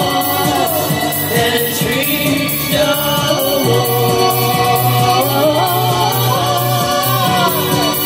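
A woman singing live into a microphone, her voice gliding and wavering over electronic dance music with a steady beat and bass line.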